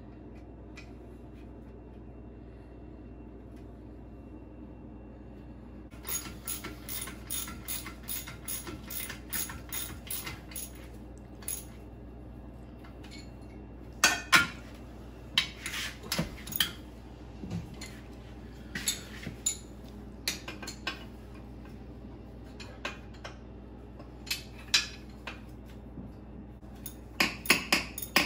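Wrench work on the stern drive's mounting nuts: about six seconds in, a run of quick even ratchet-like clicks, about three a second, then irregular sharp metallic clicks and clinks of tools and hardware.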